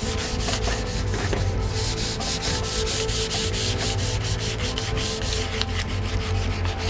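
Hand sanding of a shotgun part with sandpaper: quick, steady back-and-forth scratching strokes, several a second.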